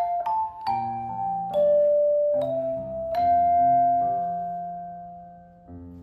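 Tone chimes played solo: a slow melody of struck, ringing notes over lower chime notes. About three seconds in, one note is held and rings out, dying away over a couple of seconds before new notes are struck near the end.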